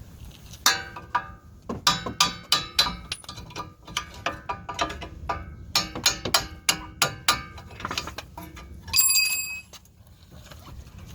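Repeated hammer blows on steel, about three a second, each ringing, while driving the old CV axle of a 2006 Honda CR-V free. Near the end comes one longer, high ringing clang of metal.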